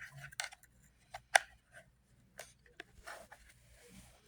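A few sharp clicks and taps of plastic being handled on a vacuum cleaner's floor head, the loudest about a second and a half in, with some soft rustling later.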